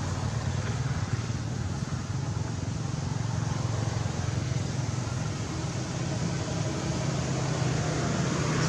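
Steady road traffic noise: a low engine rumble under a continuous hiss.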